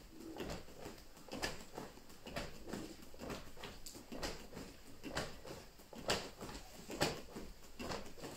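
Slow jumping jacks done barefoot on training mats: a soft thud of feet landing, with a swish of the heavy cotton karate gi, about once a second.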